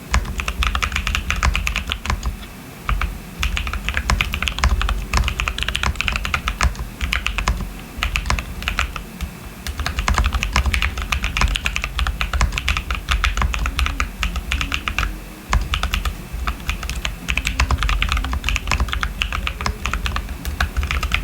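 Custom 65% mechanical keyboard (Bear65 v1) being typed on steadily: rapid key clicks from lubed Cotton Candy tactile switches under Osume Sakura keycaps, on a PC plate with plate foam and a PE sheet. The typing pauses briefly three times.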